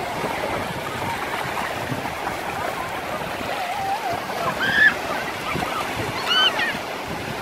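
Low surf washing in over shallow water on a sandy beach, a steady rushing wash, with a few brief high calls in the background, around the middle and again near the end.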